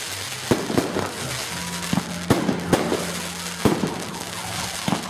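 Aerial fireworks display: shells bursting overhead with a string of sharp bangs, about seven spread unevenly over a few seconds.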